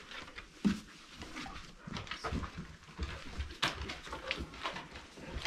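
Pit bulls making short breathy snuffling noises and small dog sounds up close, with soft thumps of paws on wooden floorboards.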